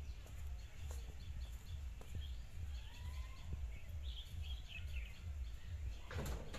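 Small birds chirping over a low rumbling background noise, with a few faint soft footsteps. About six seconds in, a louder rattling of the corrugated tin gate starts as it is pulled open.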